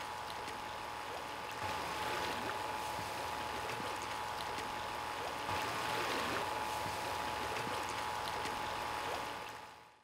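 Creek water running steadily, fading out near the end.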